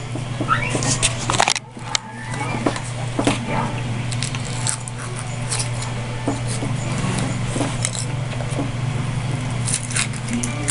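Scattered small crinkles and clicks of hands handling Kinder Surprise eggs: foil wrapper and the plastic toy capsule, over a steady low hum.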